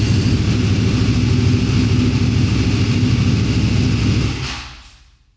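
Ducati V2's 955 cc Superquadro V-twin running at a steady idle through an open racing exhaust, with its freshly fitted STM open dry clutch rattling only lightly, the sign of a new, unworn clutch. The engine is switched off about four seconds in and dies away within a second.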